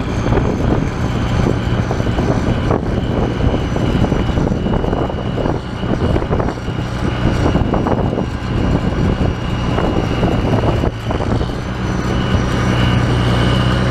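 Oliver farm tractor's engine running steadily under way as the tractor is driven, with a steady high whine over the engine note.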